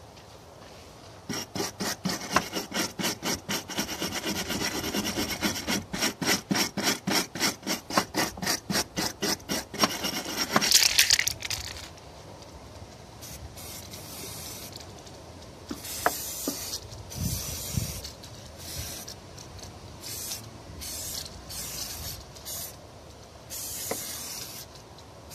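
A wire brush scrubbing the rusty steel battery tray of a car, about four strokes a second and hardest near the end of the scrubbing. Then, about twelve seconds in, an aerosol paint can sprays it in repeated short hisses of about a second each.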